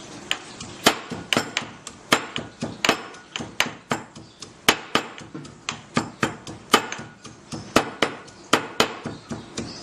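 Fresh mint leaves being pounded by hand to crush them for their juice: a steady run of sharp knocks, about three a second.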